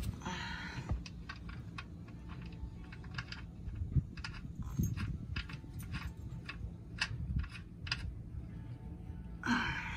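Light, irregular metal clicks and ticks as the oil drain plug is threaded back into the oil pan by hand, a wrench clinking in the same hand. A brief rustle near the end.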